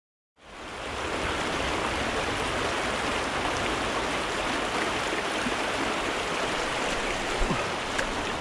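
Small rocky creek running over shallow riffles: a steady rush of water that starts abruptly about half a second in.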